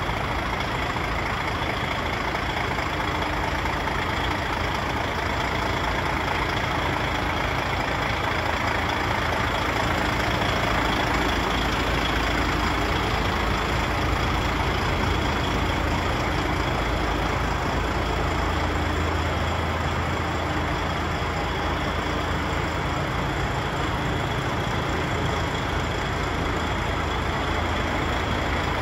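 DAF XF105's Paccar MX 460 six-cylinder diesel idling steadily, an even low rumble with no change in engine speed.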